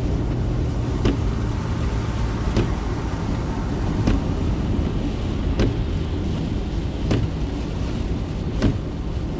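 Car driving at highway speed in heavy rain: steady road and tyre noise with rain on the car, and a short swish about every second and a half, typical of windshield wipers on a fast setting.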